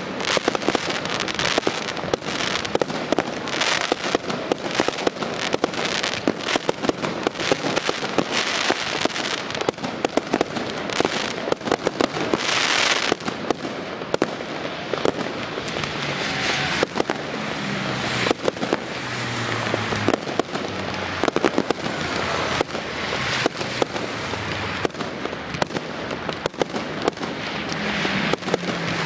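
Consumer fireworks display going off without pause: a rapid stream of bangs and crackling, with hissing rushes every few seconds.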